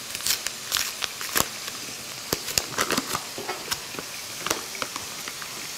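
Chicken breast pieces frying in oil in a pan: a steady sizzle with scattered crackles and pops.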